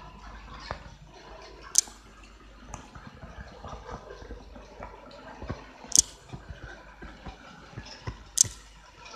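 HO-scale model trains running on their track, the wheels making small, irregular clicks over the rail joints and points, with three louder, sharp high clicks about two, six and eight and a half seconds in.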